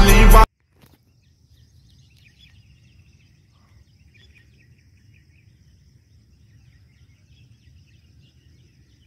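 Intro music cuts off abruptly about half a second in. It leaves faint outdoor morning ambience: scattered bird chirps over a low background rumble.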